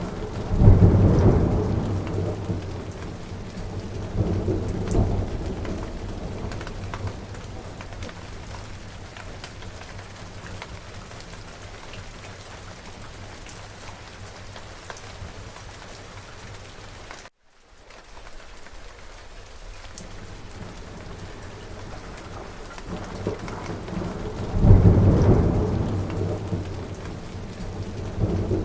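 Steady rain falling, with rolls of thunder: a loud rumble about a second in, a smaller one a few seconds later, and another near the end. The sound cuts out for a split second about two-thirds of the way through.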